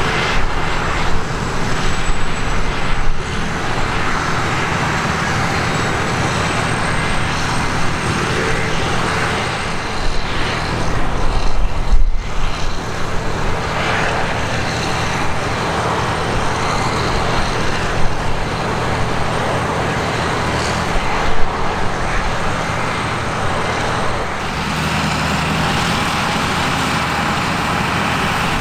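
Heavy diesel harvest machinery running steadily, a continuous engine drone under dense mechanical noise; the engine tone changes near the end.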